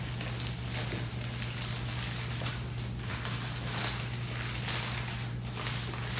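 Faint rustling and handling noises of a T-shirt being slipped into its packaging, over a steady low hum.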